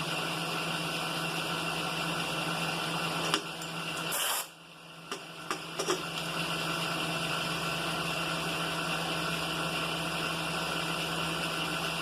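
Milling machine running with a boring head taking a very light finishing cut, a steady hum with a fixed low tone. About three seconds in comes a click, then a short hiss; the hum dips for about a second, with a few clicks, before it steadies again.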